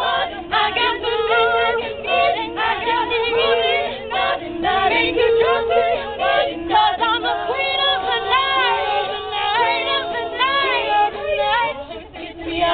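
Women's a cappella group singing in harmony: backing voices hold sustained chord notes while a lead voice sings wavering, arching runs over them, most prominently past the middle.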